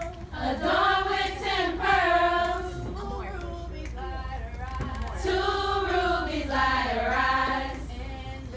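A group of women singing a serenade together in long, drawn-out phrases, swelling louder twice.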